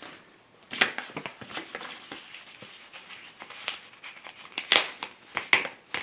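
Paper cards and envelopes being handled on a table: rustling, sliding and crinkling in short bursts, with sharper rustles about a second in and again near the end.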